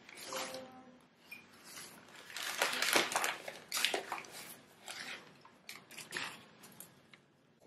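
Crumpled paper wrapping rustling and crinkling by hand in irregular bursts as a packed item is unwrapped.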